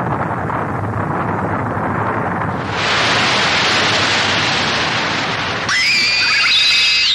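Cartoon sound effects: a dense rushing rumble that swells louder about two and a half seconds in, then near the end an electronic whine that rises and holds, as the enemy robot's eyes light up in the dark.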